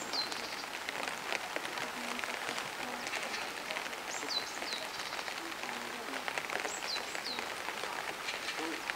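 Steady patter of rain, with short, high chirps that fall in pitch, coming singly or in quick runs of three.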